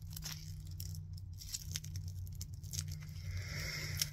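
Thin plastic wrapping crinkling and tearing in short, irregular rustles as it is pulled off a small metal keychain charm, over a low steady hum.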